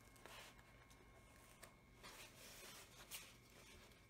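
Faint rustling and crinkling of a large diamond painting canvas and its printed protective cover sheet being handled, with a longer rustle a couple of seconds in and a short tick near the end.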